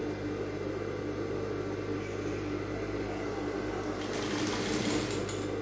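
Sewing machine running steadily as fabric is stitched, with a brief rustling hiss about four seconds in.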